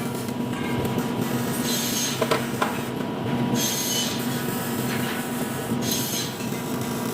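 Metalworking noise: a steady low hum with repeated short hissing, scraping strokes, each lasting about half a second to a second.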